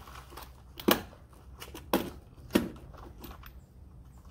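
A spline roller pressing screen spline and insect mesh into the channel of an aluminium screen frame, with three sharp clicks about a second apart.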